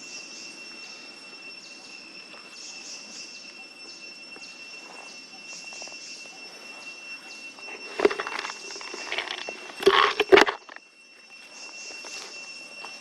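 Steady high insect drone with a faint chirping pulse about every second and a half, broken by loud sudden noises about eight seconds in and again around ten seconds in.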